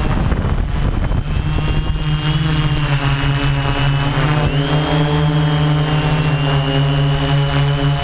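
Steady hum and high whine of a radio-controlled model aircraft's electric motors and propellers, heard from the onboard camera in flight. Wind rushes over the microphone at first. The motor note then settles and rises slightly in pitch about four and a half seconds in.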